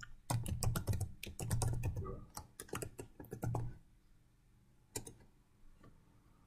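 Quick typing on a computer keyboard, a rapid run of key clicks that stops after about four seconds, followed by a single click about five seconds in.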